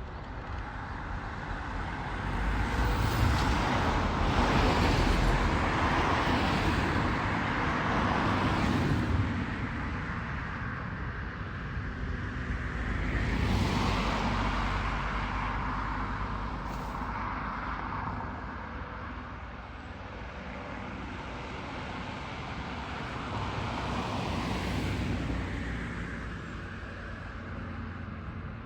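Engine and vehicle noise that swells and fades several times, the loudest swell lasting from about three to nine seconds in.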